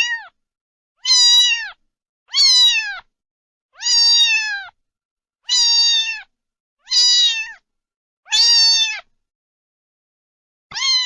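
A cat meowing again and again, about one meow every second and a half. Each meow is a drawn-out, high call that drops in pitch at the end.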